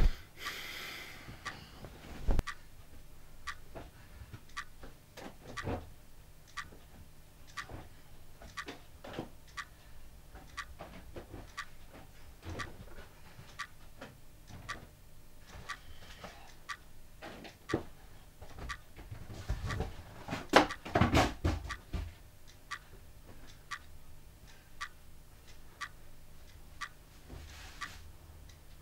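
A clock ticking steadily in an even rhythm. About twenty seconds in, a cluster of louder knocks and thuds stands out as the loudest sound.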